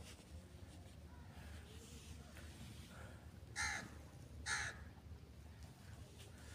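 A bird calling twice, two short loud calls about a second apart, over a faint steady outdoor background.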